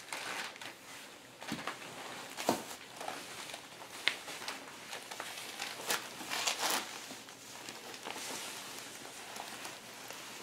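Rustling and crinkling of PVC clothing as the wearer moves about, with scattered knocks and shuffles from body and boot movement.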